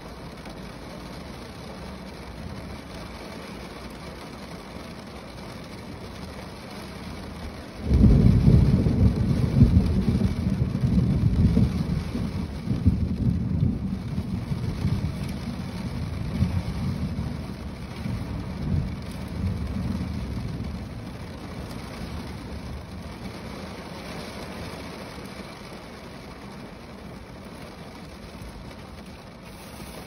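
Steady rain falling on a car's roof. About eight seconds in, a sudden loud, deep rumble of thunder breaks in and rolls away slowly over some fifteen seconds.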